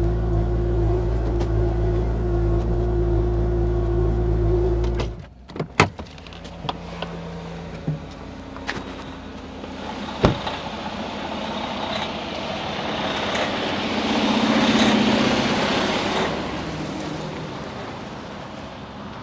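Excavator's diesel engine running steadily, cut off abruptly about five seconds in. A few sharp knocks follow, then a rushing machine noise that swells and fades again.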